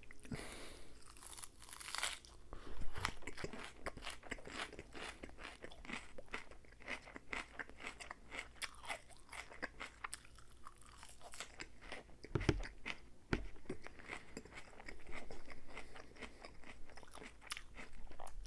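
Close-miked chewing of a salad of crisp lettuce with egg, ham and cheese: a dense run of short crunches and mouth sounds.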